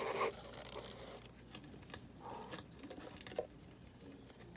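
Quiet handling noises of plastic animal containers and packing: a brief crinkly rustle at the start, then scattered light taps and small rustles.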